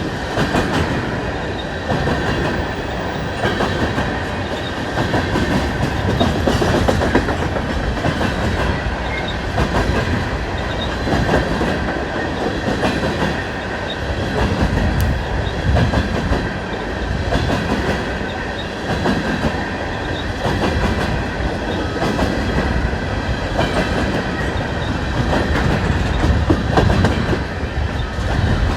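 Freight cars of a long coal train rolling past, with the steady rumble of the wheels and a continual clickety-clack as they cross rail joints. A faint high ringing from the wheels on the rail runs underneath.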